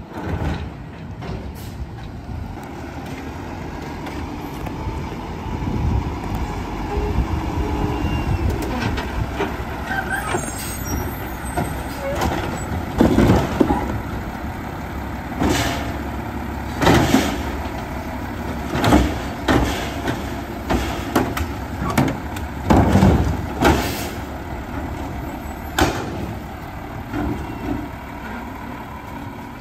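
Automated side-loader garbage truck running at the curb, its diesel engine and hydraulic arm working. About halfway through comes a run of loud bangs and clanks as carts are tipped and knocked against the hopper.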